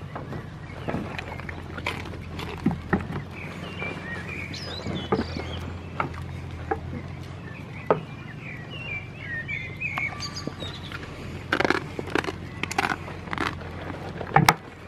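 Small birds chirping in the background, in two short spells, over a steady low rumble, with scattered knocks and rustles as goats move about; the knocks come thicker near the end.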